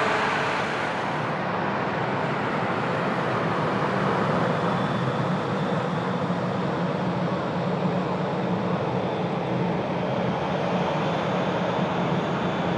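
Jet airliner on final approach to land, a steady engine rumble with a faint high fan whine.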